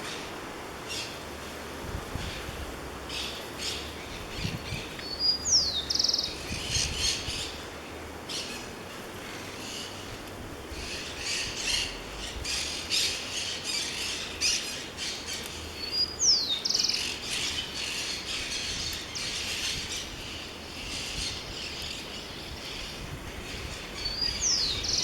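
Birds chirping and calling over a steady outdoor background. One call repeats three times, about ten seconds apart: a quick falling whistle followed by a short rapid trill.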